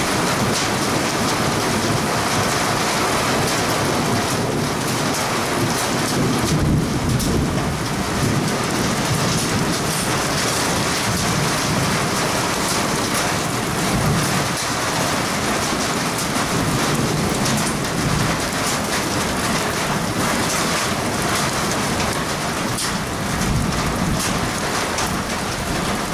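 Heavy rain falling steadily, a dense even hiss, with low rumbles of thunder swelling up a few times.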